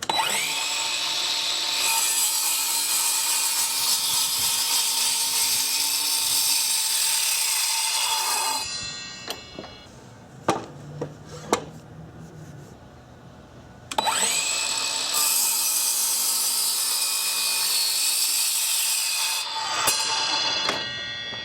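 Craftsman V20 cordless sliding miter saw with a 7.25-inch 40-tooth carbide blade, twice spinning up and cutting through a 3.5-by-3.5 pine post, each cut lasting several seconds before the motor winds down. Between the two cuts there are a few sharp knocks.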